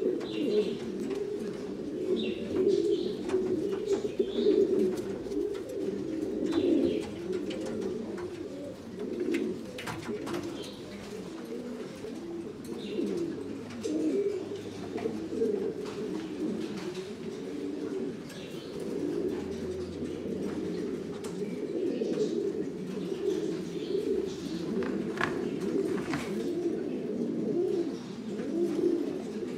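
Buchón Gaditano pouter pigeons cooing, many birds at once, so the low coos overlap without a break. Faint short higher chirps and a few light clicks come over the top now and then.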